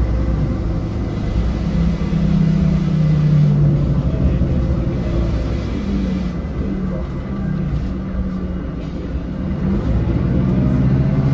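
Inside the cabin of a 2007 Mercedes-Benz O500LE low-floor bus, engine and drivetrain running under way. The engine note rises as the bus accelerates, then steps in pitch as the gears change, over a steady road rumble.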